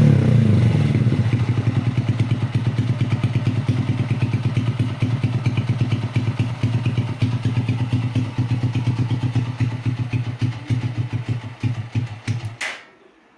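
Honda TMX 125 Alpha's single-cylinder four-stroke engine breathing through a Leo Vince aftermarket exhaust. Its revs drop back to a steady, pulsing idle, and near the end the engine is switched off and the sound stops suddenly.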